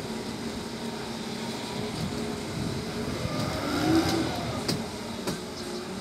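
Boat engine running steadily, with water and wind noise. About four seconds in there is a brief rising-then-falling sound, the loudest moment.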